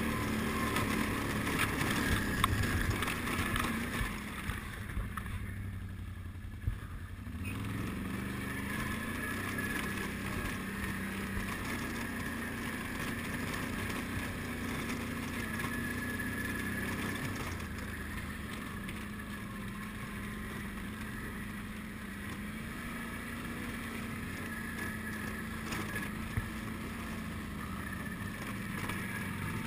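ATV engine running as the quad climbs a snowy trail. The engine eases off briefly about five seconds in, then pulls again.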